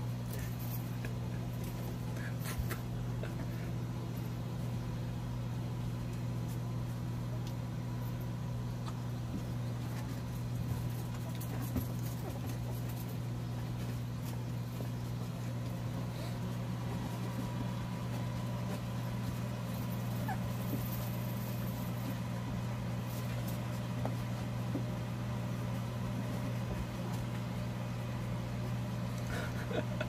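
Steady low hum of an electric fan running, with faint small sounds from a litter of puppies nursing at their mother.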